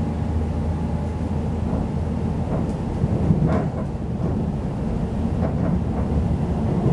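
Interior running noise of a Class 345 electric multiple unit at speed: a steady low rumble of wheels on rail, with a brief clatter about three and a half seconds in and lighter knocks near the end.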